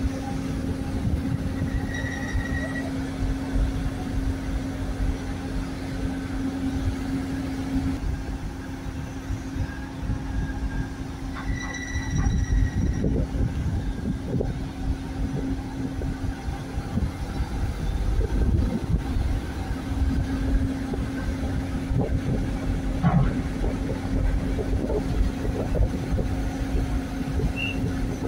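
Heavy diesel engines of mobile cranes running steadily, a constant low hum over a gusty rumble of wind on the microphone. Two short high tones sound, about ten seconds apart.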